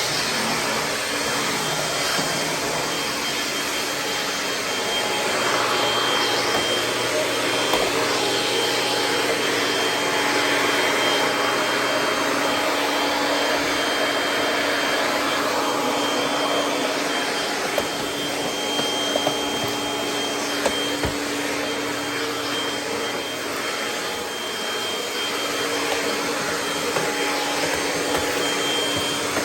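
Kirby G6 upright vacuum cleaner running steadily on carpet, its motor giving a constant hum and high whine, with a few brief ticks as debris such as pine needles is sucked up.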